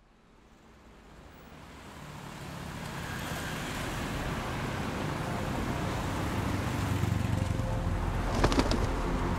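Road traffic noise fading in from silence and growing steadily louder, with a low steady hum underneath. A brief burst of sharp clicks comes near the end.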